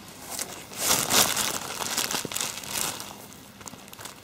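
A thin plastic bag crinkling as a hand digs into it and scoops out a handful of damp homemade groundbait. The rustling is loudest about a second in and grows quieter toward the end.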